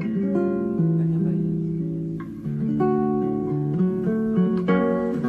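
Background music: plucked acoustic guitar playing a melody over held notes.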